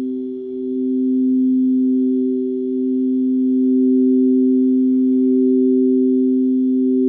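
Singing bowls ringing on, two steady sustained tones at different pitches that swell slowly in loudness.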